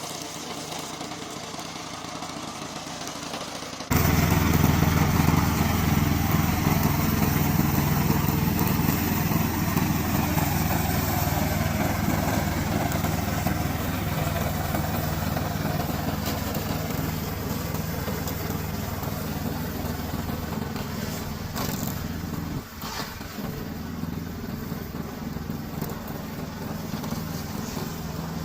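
Remote-control slope mower's engine running steadily. It jumps suddenly louder about four seconds in and then holds an even drone.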